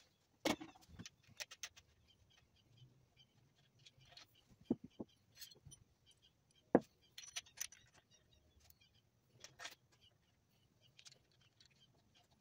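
Scattered light metallic clicks and clinks of pushrods and rocker arms being handled and fitted on a Ford Cleveland V8's cylinder head, with a sharper click about seven seconds in.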